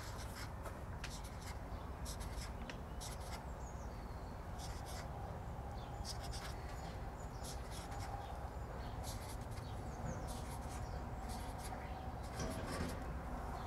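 Felt-tip marker drawing on flip-chart paper: many short, scratchy strokes in quick clusters as small shapes are drawn in. A low steady rumble sits behind them.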